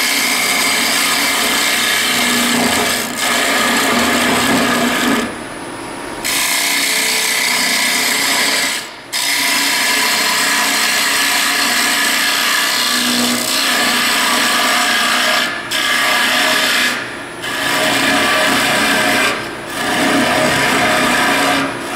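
Carbide-tipped hollowing tool cutting the inside of a wooden bowl spinning on a lathe: a steady scraping hiss of wood being cut. It breaks off briefly about five times as the tool eases out of the cut. The cut runs smoothly, with no chatter.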